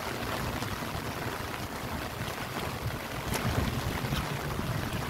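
Wind buffeting the microphone in an uneven low rumble over a steady hiss of rain, with a few faint ticks.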